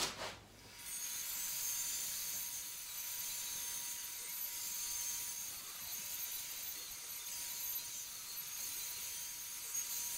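Table saw switched on about a second in, then running steadily with a faint steady tone and a high hiss while an oak strip is ripped to width.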